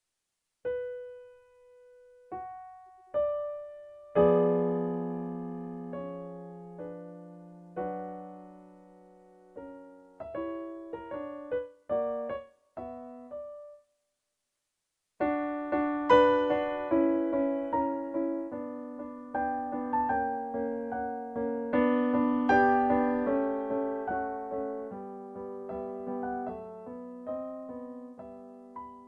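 Solo piano music: sparse single notes and chords at first, a short pause, then a fuller, busier passage.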